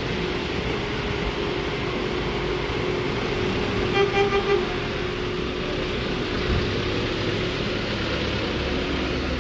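Steady street traffic and engine noise, with a vehicle horn giving four quick short toots about four seconds in.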